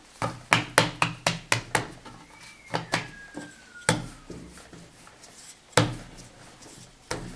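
Wooden rolling pin and dough knocking against a floured stone worktable as puff pastry is handled and rolled. A quick run of about seven sharp taps over the first two seconds is followed by scattered knocks.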